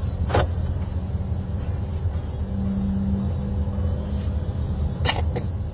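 Steady low rumble of car road noise heard from inside the cabin, with one brief sharp sound about half a second in and two more near the end.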